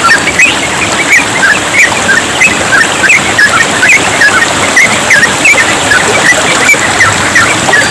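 Yellow-vented bulbuls singing in a fast, continuous run of short chirps over the steady rush of trickling water.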